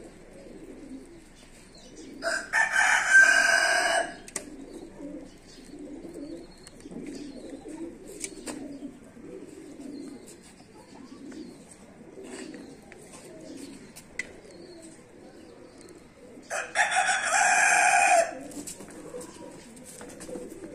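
A rooster crowing twice, each crow loud and lasting about two seconds: once about two seconds in and again near the end. Between the crows, pigeons coo in a low, steady pulse.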